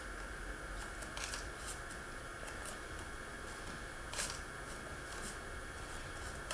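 Steady background hiss with a few faint rustles and small clicks, the most distinct about a second in and about four seconds in.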